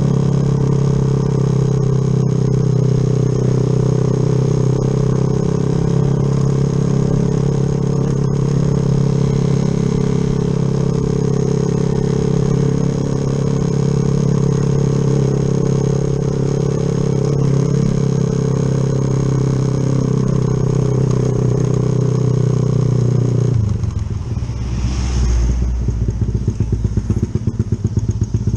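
Yamaha Jupiter MX single-cylinder four-stroke engine, bored up with a 72 mm piston, running at a steady engine speed. About 24 seconds in, it drops abruptly to a low, pulsing idle.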